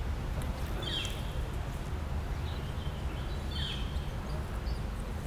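Outdoor ambience: birds giving a few short chirps, about a second in and again near four seconds, over a steady low rumble.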